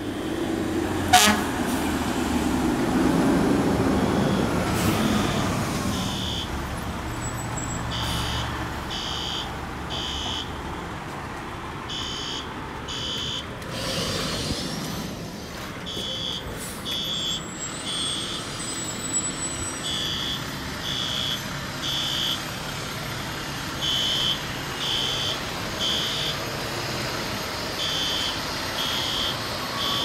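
Fire apparatus engine rumbling at the start, with one short, loud, sharp blast about a second in. From about six seconds on, a fire alarm sounds in the temporal-three evacuation pattern: three high beeps, a pause, repeating about every four seconds.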